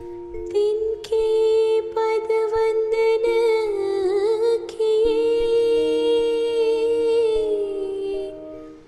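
Slow background music with long held notes over a steady lower drone; the melody wavers in pitch about four seconds in.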